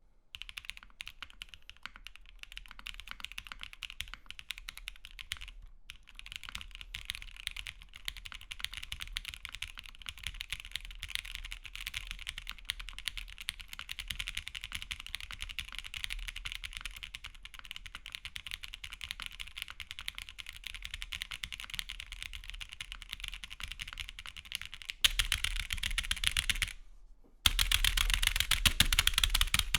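Fast, continuous typing on a mechanical keyboard: a dense run of key clacks. About 25 s in the typing gets much louder, stops briefly, then carries on loud.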